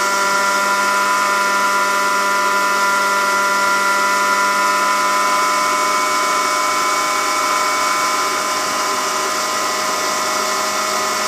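Johnson 15 hp outboard motor running steadily at cruising speed, about 17 to 19 mph, an even drone with a steady high whine.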